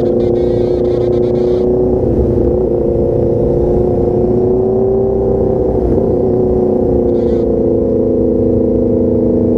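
Motorcycle engine running at a steady cruise, its pitch creeping up a little and then falling back about six seconds in.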